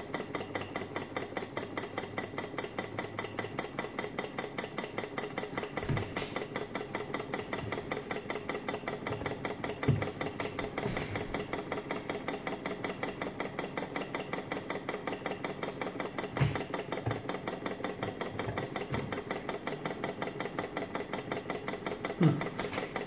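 Small walking-beam model Stirling engine, flame-heated, running with a rapid, even mechanical ticking and a steady faint hum. A few soft low thumps come through now and then.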